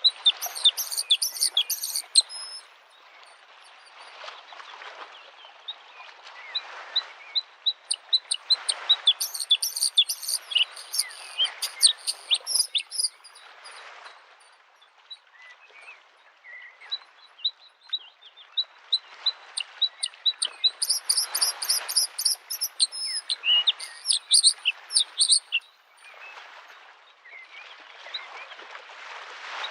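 Bluethroat singing in bursts of rapid ticking notes and high trills, over small waves lapping on a lake shore that wash in and fade every few seconds.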